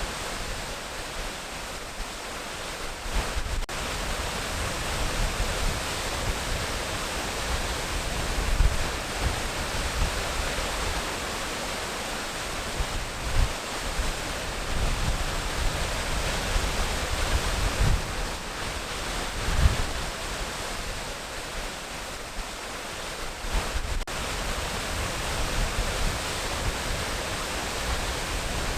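Waterfall rushing with a steady hiss, with deep irregular rumbles swelling every few seconds.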